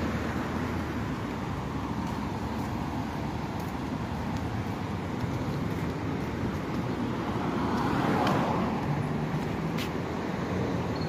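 Road traffic on a wide multi-lane city road, with cars driving past. One passing car swells and fades about eight seconds in, and there is a short sharp click near the end.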